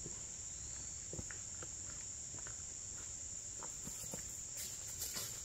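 Steady high-pitched chorus of insects, like crickets, with a few faint scattered light clicks and crunches over it.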